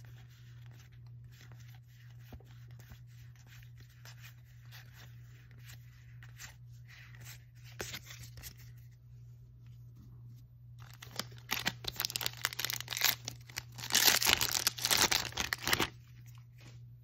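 Magic: The Gathering cards being shuffled and slid in the hands, with faint clicks, then from about eleven seconds in a foil booster-pack wrapper crinkling and being torn open, loudest near the end. A low steady hum runs underneath.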